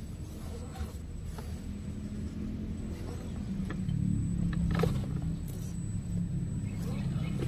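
Radio-controlled rock crawler's electric motor and geared drivetrain running with a low growl, which gets louder from about four seconds in, with scattered clicks and knocks over the top.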